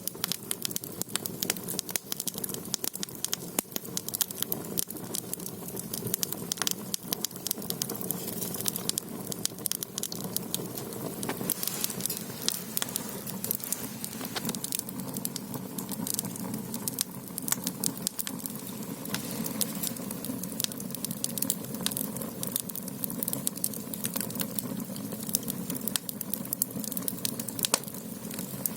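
Firewood burning in the firebox of a Korean ondol floor-heating system: dense, irregular crackling and popping over a low, steady rush of the flames.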